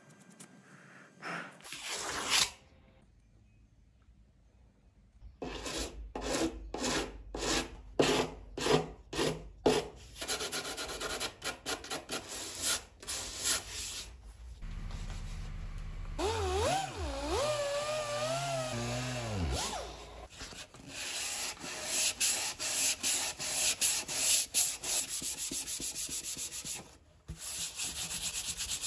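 Sandpaper rubbed by hand over the cured resin and fiberglass of a surfboard rail near the fin box, in back-and-forth strokes: about two a second at first, then faster and more continuous. A wavering pitched tone sounds for a few seconds midway.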